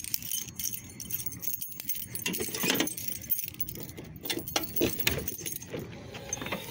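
A bunch of keys jangling on a keyring, with a run of small clicks and knocks.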